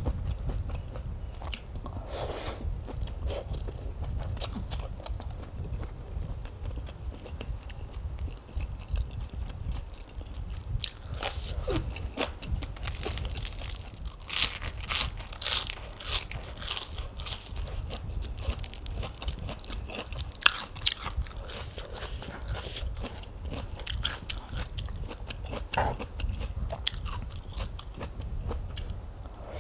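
Close-miked eating: a person chewing soft rice noodles and biting and crunching crisp fresh lettuce leaves, with the crunching loudest and densest in the middle.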